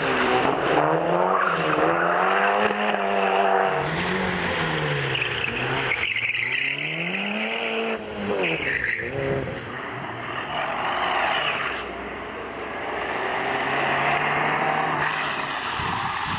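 A succession of rally cars, a Citroën Saxo, a Mitsubishi Lancer Evolution and a Fiat Seicento, driven hard one after another, with engine notes rising and falling as the throttle is worked and gears change. Tyre squeal comes and goes.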